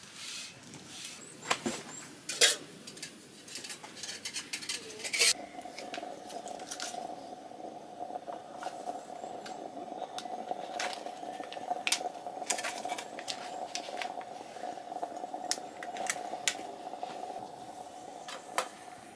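Cookware and utensils clinking and knocking as they are handled, in scattered separate strikes. A steady faint hum joins about five seconds in.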